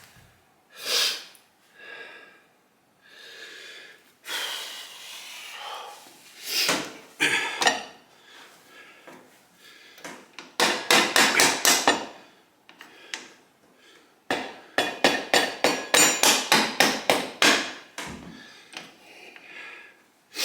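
Hammering on metal motorcycle parts: two runs of quick, ringing hammer blows, about five a second, one about ten seconds in and a longer one from about fifteen seconds in, between scattered clatter and scraping of parts.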